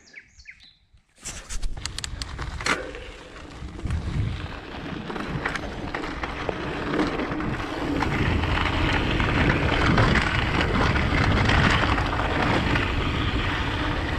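Mountain bike rolling over a rough trail of loose sand, gravel and rock: steady tyre rumble with rattling clicks and knocks. It starts about a second in and gets louder in the second half.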